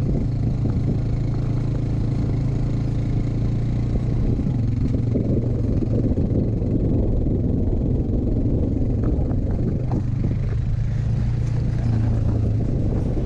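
Side-by-side UTV's engine running steadily while driving a dirt trail, a low even drone, with rough tyre and chassis rattle; a few knocks about nine to ten seconds in.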